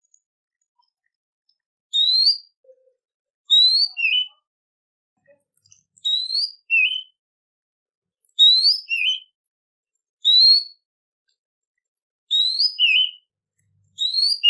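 A songbird's song: about seven short, clear whistled phrases, each a quick rising note followed by a shorter lower note, repeated roughly every two seconds with pauses between.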